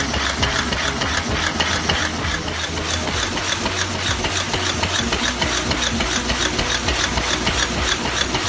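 High-speed paper cup forming machine running: a rapid, even clatter from its mechanism over a steady low hum.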